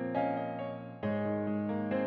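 Slow background piano music: sustained chords that fade away, with a new chord struck about a second in.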